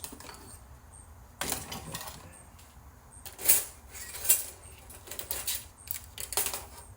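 Loose plastic and metal parts from a dismantled VCR clattering and clicking as they are handled and set down, in a handful of sharp rattles, the loudest two about three and a half and four and a half seconds in.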